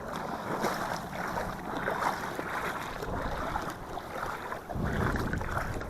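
Wind buffeting the microphone over splashing water, with a stronger gust about five seconds in.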